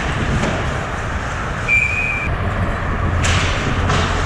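Ice-hockey game ambience in a rink: a steady low rumble under a hiss of crowd and on-ice noise, with a short, steady high-pitched tone about two seconds in.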